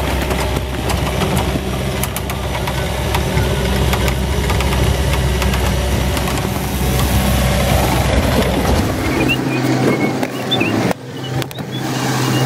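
Takeuchi TL120 compact track loader's diesel engine running steadily as the machine drives with a load in its bucket. About nine seconds in, the deepest part of the hum drops away and the running goes on lighter, with a sudden break shortly after.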